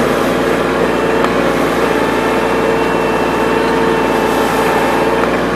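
Yanmar SC2450 compact tractor's diesel engine running steadily under load, with a steady high whine starting about two seconds in and stopping near the end, as the loader hydraulics max out and cannot lift the load.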